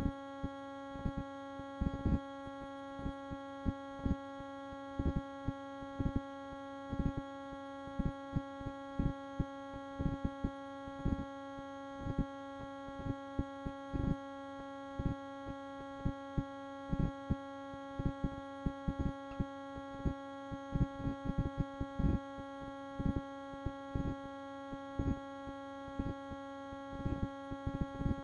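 Steady electrical hum made of several even steady tones, broken throughout by short clicks and pops at an uneven pace of a few a second.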